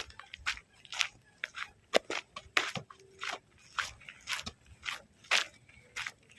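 Footsteps crunching on dry ground or leaves, a steady walking pace of about two steps a second.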